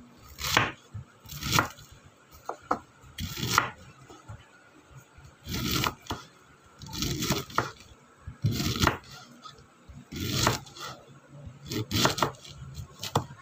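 Kitchen knife slicing through a head of cabbage on a wooden cutting board: crisp crunching cuts that knock on the board, about one every second, unevenly spaced.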